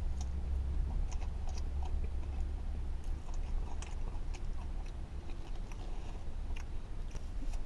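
A person biting into and chewing a crispy spicy chicken sandwich with bacon on a pretzel bun, with scattered short crunchy clicks. A steady low hum runs underneath.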